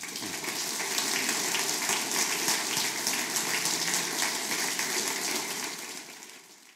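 Lecture audience applauding, many hands clapping in a dense patter that swells about a second in and fades out near the end.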